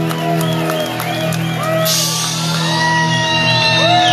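Rock band playing live, with held guitar and bass notes, and shouts and whoops from the crowd over the music.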